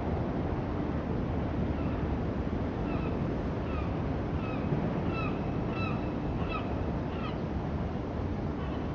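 Steady outdoor city ambience, a constant hum of distant traffic and air. Through the middle it carries a run of about a dozen short, squeaky chirps, roughly two a second, that stop a little before the end.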